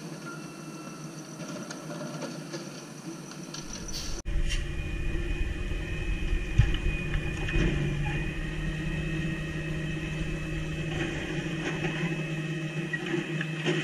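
Natural-gas automated side-loader garbage truck running close by: a steady low engine sound with a high whine above it. It jumps louder about four seconds in, and there is one sharp knock a couple of seconds later.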